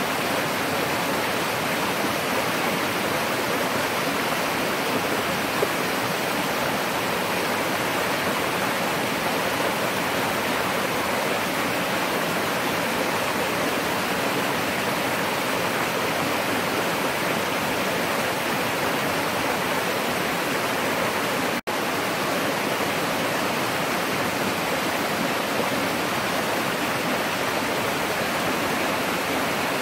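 Mountain stream rushing over rocks and small cascades, a steady, even water noise. It cuts out for a split second about two-thirds of the way through.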